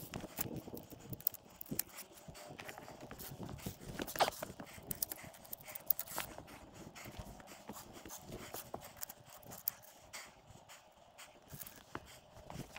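Footsteps on rock: irregular clicks, knocks and scuffs of boots.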